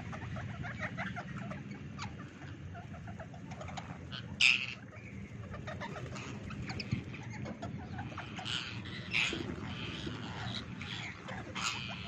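A flock of rose-ringed parakeets pecking at dried corn cobs, a patter of small clicks as they work the kernels. Short calls break out about four and a half seconds in, twice around nine seconds, and again just before the end.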